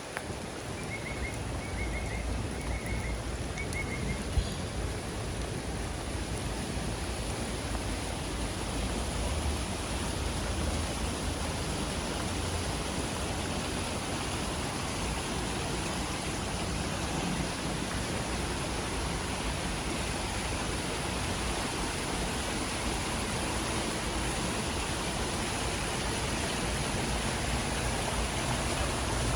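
Steady hiss of rain falling. A few faint high chirps in the first few seconds, and a brief click about four seconds in.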